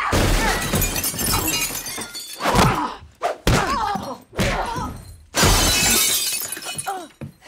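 Film fight sound: two loud crashes of shattering glass, one at the start and another about five seconds in. Between them come grunts and short strained cries from the fighters.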